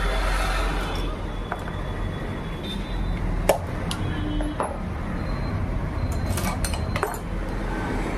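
Scattered light metal clicks and clinks as parts of a Soni hand sewing machine are handled and fitted at the needle plate, over a steady low background rumble.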